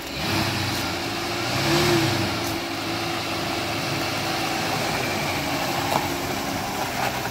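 Rebuilt 300 cubic-inch straight-six of a 1965 Mercury M100 pickup pulling the truck along at low speed. The engine revs up briefly about two seconds in, then runs steadily, with tyres rolling on gravel.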